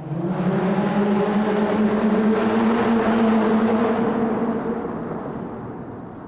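Car engine driving through a tunnel: it revs up at the start, runs loud and steady for a few seconds, then fades away toward the end.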